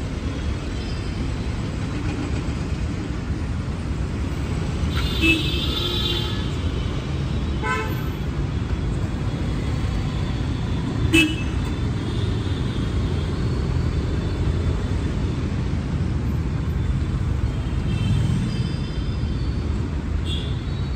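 Dense slow-moving city traffic rumbling steadily, with car horns tooting several times; the longest honk comes about five seconds in. A short sharp sound a little after the middle is the loudest moment.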